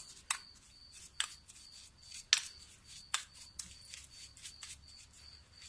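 A spoon clicking lightly against a bowl as a heaping spoonful of granulated sugar is added to grated turnip: a handful of sharp, quiet clicks about a second apart.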